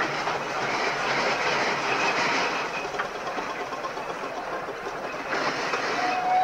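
Small steam engines at work: a steady hiss and running noise of steam. Near the end a steam whistle starts, sounding one steady note.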